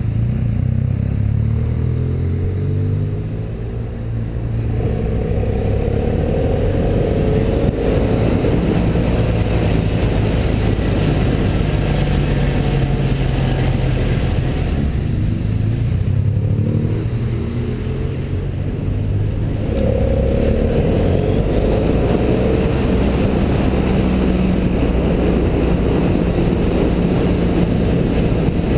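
BMW F650GS motorcycle engine under way, heard from the bike itself with wind noise. The engine note eases off and picks up again twice, about five and twenty seconds in, as the bike rounds hairpin bends.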